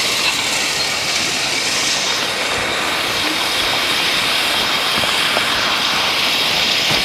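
Horse-drawn spring-tooth harrow dragged across freshly spread crusher-run gravel, its steel tines scraping through the stone with a steady noise.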